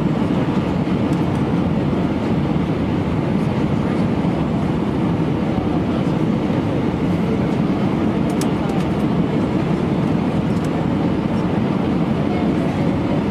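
Steady engine and airflow noise of an Airbus A319 airliner, heard from inside the cabin, with a few faint ticks about eight seconds in.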